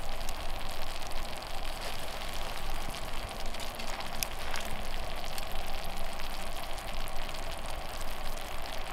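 A skillet of chicken, onions and cheese in sauce sizzling steadily on a grill over a wood fire, with a couple of sharper pops about four seconds in.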